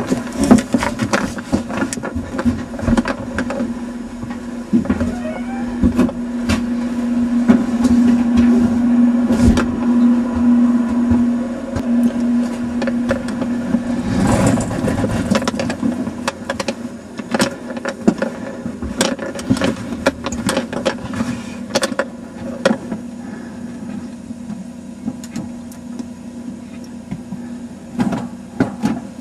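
Steady hum of a small fan motor heard from inside a simulated spacesuit helmet, most likely the suit's ventilation fan. Many knocks, clicks and rustles of the suit and helmet being handled and bumped come over it. The hum is loudest in the first half and drops lower about halfway through.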